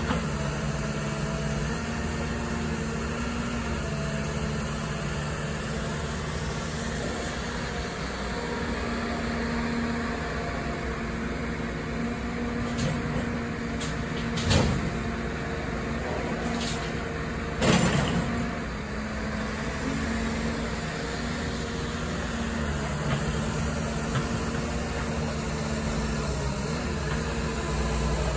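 Caterpillar 319D hydraulic excavator's diesel engine running steadily as it digs and swings soil. Two sharp knocks stand out, about halfway and two-thirds of the way through, around when a bucketload of soil is dumped.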